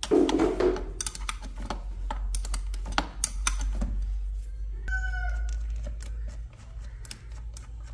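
Irregular metal clicks and taps of a wrench working loose the bolts on a water booster pump, over a low steady hum.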